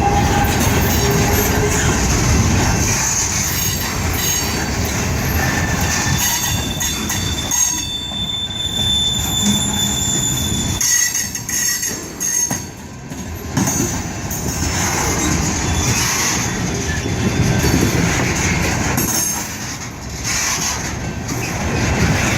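Freight train cars rolling past with continuous wheel and rail rumble and clatter. A thin, high wheel squeal rings out for a few seconds around the middle.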